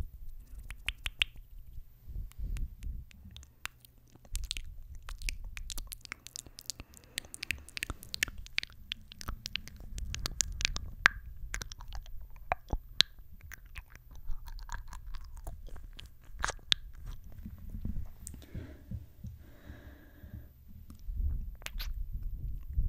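Close-miked kisses, wet lip smacks and smooches right on a microphone: a fast, irregular run of sharp clicks and pops over a low breathy rumble.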